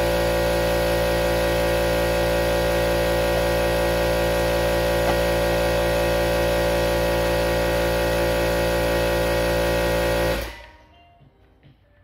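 A loud, steady machine running, a rushing noise with a fixed hum under it, that cuts off abruptly about ten and a half seconds in. Faint music follows.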